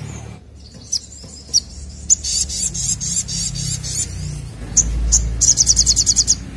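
Caged sogokontong sunbird singing: a few sharp single high chips, then two rapid trills of quickly repeated high notes, the second near the end.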